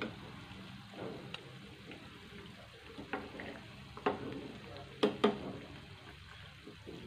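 Battered chicken pieces deep-frying in hot oil in a kadai with a steady sizzle, while a metal slotted spatula turns them over, knocking against the pan several times; the two loudest knocks come about five seconds in.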